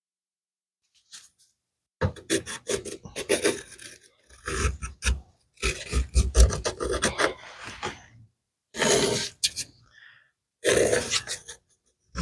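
Rasping hand strokes scraping on a workpiece, like filing or sanding by hand, in irregular runs with short pauses. It starts about two seconds in and ends with two short separate bursts.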